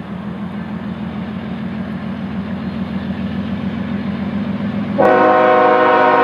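An approaching train's locomotive gives a steady low rumble that slowly grows louder. About five seconds in, its horn sounds abruptly as a held chord of several tones, the warning for the grade crossing.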